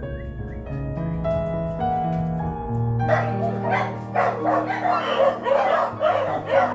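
Puppy yelping and barking in quick repeated bursts, starting about halfway through, over soft piano music.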